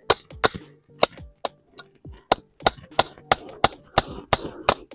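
Hammer striking thin wooden slats, a dozen or so sharp knocks at about two to three a second, as the slats are fixed together into a frame.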